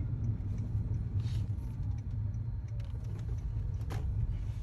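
Honda Vezel driving on the road: a steady low rumble of engine and road noise.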